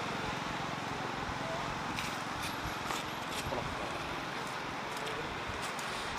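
Steady outdoor background noise with a low rumble, and a few faint clicks between about two and three and a half seconds in.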